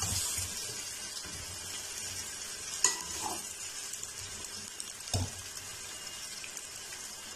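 Taro root slices deep-frying in oil in a metal karahi, a steady sizzle, with a slotted metal spoon stirring and clicking against the pan twice. The slices are fried like this to cut their sliminess.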